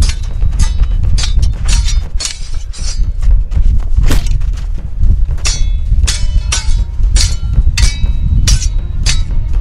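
Steel swords clashing in a sword fight: more than a dozen sharp metallic clangs at uneven intervals, each ringing briefly, over a heavy low rumble.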